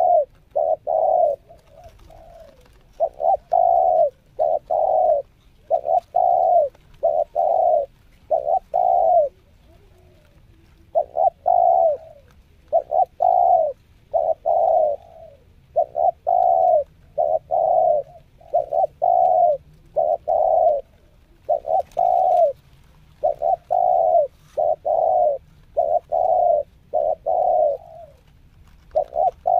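Spotted dove (tekukur) cooing over and over: short low coos in runs of two or three, with a longer pause about ten seconds in. It is a decoy bird in luring training.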